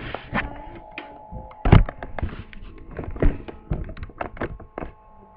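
A string of irregular knocks and thuds, several a second, with one heavier thud about two seconds in.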